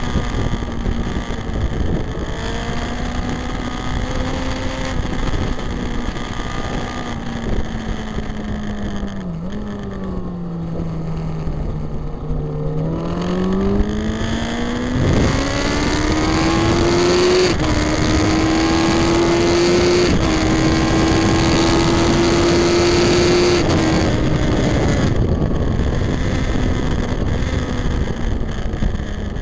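2003 Yamaha R1's inline-four engine at racing speed, heard from the bike itself. The note drops as it slows for a corner about ten seconds in, then climbs hard through the gears with three short dips at the upshifts, and eases off near the end.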